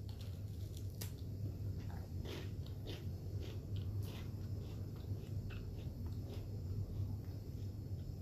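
Crisp vanilla wafer cookie being bitten and chewed: a sharp crack about a second in, then irregular soft crunches.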